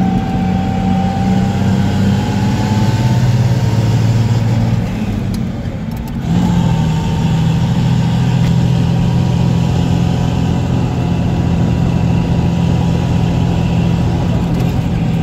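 Diesel engine of a 1975 Dodge Big Horn tandem-axle tractor, heard from inside the cab as the truck pulls along the road, with a steady whine above the engine note. Its level drops briefly about six seconds in, then it pulls steadily again.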